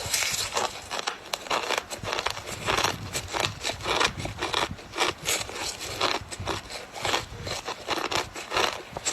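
Ice being chewed, crunching between the teeth in a quick, irregular run of crisp cracks and crunches, several a second.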